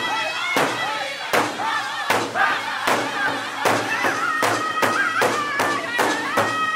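Powwow big drum: several men beat a large hide-covered drum together in a steady rhythm while singing over it in unison, the held notes wavering high.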